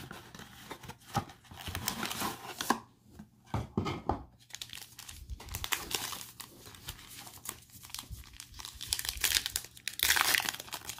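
Cardboard blaster box and foil card packs handled with scattered crinkles and clicks, then a foil football card pack crinkling and tearing open, loudest near the end.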